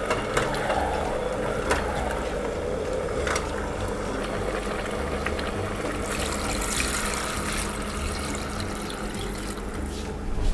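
Chicken wings stirred with metal tongs in a pot of frying paste, the tongs clicking a few times against the pot. About six seconds in, water is poured from a plastic measuring jug onto the chicken for about three seconds, to cover it for braising.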